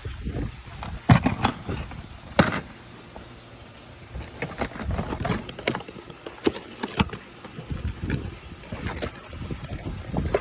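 Handling noise from a box and its packaging being opened: irregular knocks, taps and scrapes, with two sharper knocks in the first few seconds.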